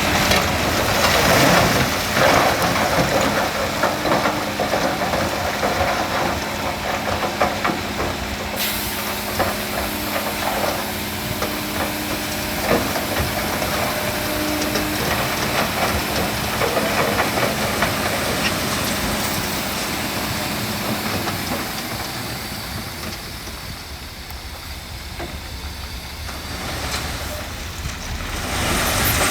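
Heavy diesel earthmoving machinery running, with steady engine tones under a continuous hissing, rushing noise and scattered clicks; the sound eases off for a few seconds past the middle and then builds again.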